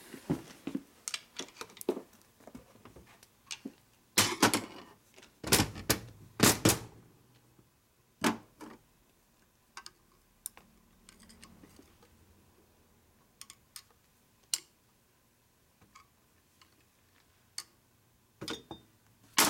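Metal hand tools and engine parts clinking and clanking on a steel workbench while a screwdriver works the cam cover screws of a Harley shovelhead engine case. A cluster of louder clanks comes about four to seven seconds in, with scattered lighter clicks and ticks after.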